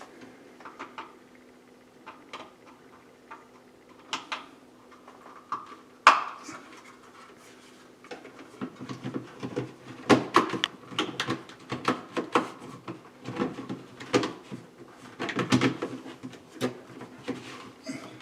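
Irregular clicks, taps and clatter of a plastic smoke detector being handled and fitted to its ceiling mounting plate. A sharp click comes about six seconds in, and the clatter gets busier through the second half.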